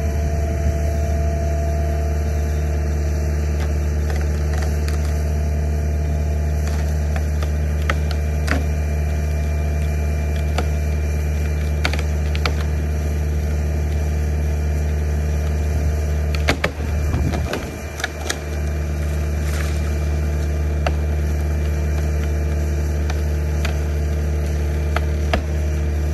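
Kobelco hydraulic excavator's diesel engine running steadily with a deep hum while the bucket presses against a tall dead tree trunk. Scattered sharp clicks, the loudest cluster about two-thirds of the way through.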